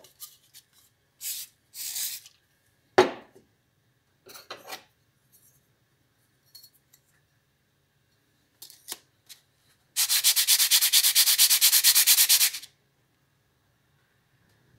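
Steel plane iron from a Falcon No.220 block plane rubbed back and forth flat on an oiled sharpening stone: a quick, even scraping of about six strokes a second for two and a half seconds near the end, flattening the back of the iron. Earlier come two short hisses of penetrating spray onto the stone and a sharp knock.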